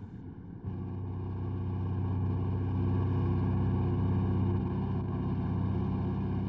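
An engine running steadily at an even pitch, starting about half a second in.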